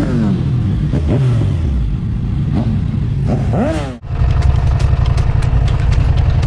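Motorcycle engines revving as several bikes ride past, the pitch rising and falling in short sweeps. At about four seconds the sound cuts to one motorcycle engine running steadily at low revs.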